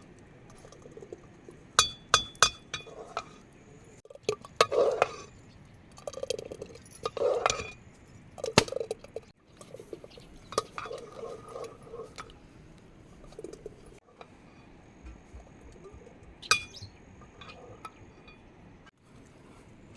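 Dishes or utensils clinking: scattered sharp knocks with short ringing tones, a quick cluster about two seconds in, more around seven to nine seconds, and one more late on.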